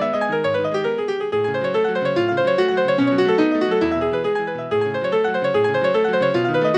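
Nokia 7650 ringtone playing: a fast, piano-like synthesized melody over bass notes. It breaks off briefly about two-thirds of the way through and starts again.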